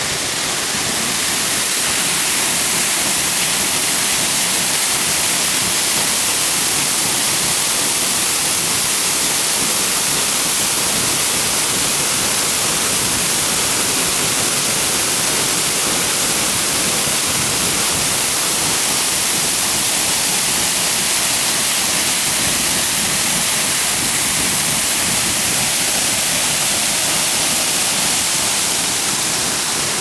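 Waterfall pouring onto rocks, with stream water rushing below: a loud, steady rush of falling water, mostly high hiss. It grows a little louder about two seconds in.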